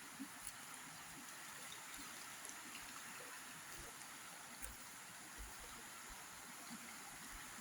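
Faint, steady rush of flowing water, with a few soft clicks and brief low bumps over it.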